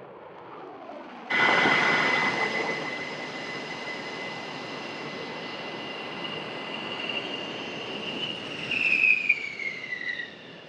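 A-10 Thunderbolt II's twin TF34 turbofan engines with their high steady whine over a jet roar as the aircraft comes in to land. The whine drops in pitch near the end as it passes. A fainter jet noise comes before it, for about the first second.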